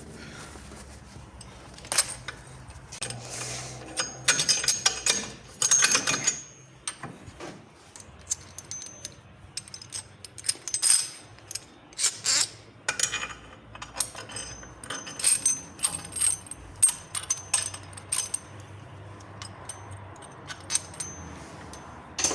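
Metal tools and parts clinking and clattering: irregular sharp metallic clinks, some with a brief ringing tone, over a faint steady low hum.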